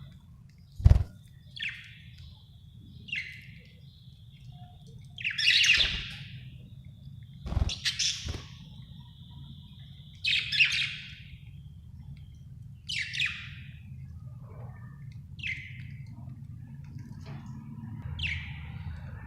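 Budgerigar chirping: short separate chirps every two to three seconds. Two sharp knocks come about a second in and near eight seconds.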